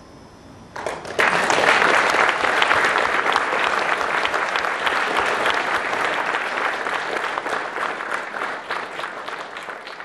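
Audience applauding after a sung solo, breaking out suddenly about a second in as dense clapping and slowly dying away near the end.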